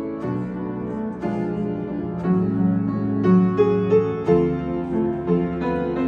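Upright piano and a Nord Stage keyboard playing an instrumental interlude of chords and melody notes, with no singing.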